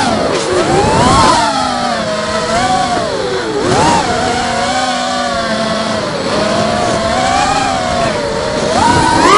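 Brushless motors and 5-inch propellers of an FPV racing quadcopter whining as heard from the onboard camera, the pitch rising and falling with throttle, with sharp dips about half a second in and again about four seconds in.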